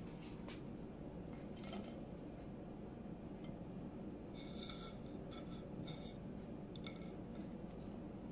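Light clinks and taps on a ceramic plate as fingers move fenugreek seeds and a hibiscus flower about. A few faint clicks come first, then a run of short ringing clinks from about halfway in, over a steady low hum.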